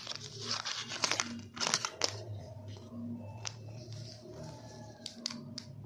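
Cardboard lipstick carton being handled and opened: rustling and scraping of the card for about the first two seconds, then a few light clicks and taps as the plastic lip-gloss tubes are taken out and set down.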